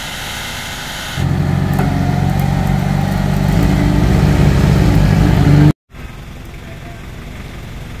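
A vehicle engine running hard close by: it comes in suddenly about a second in with a steady low pitch and grows louder, then cuts off abruptly after about six seconds, leaving quieter background noise.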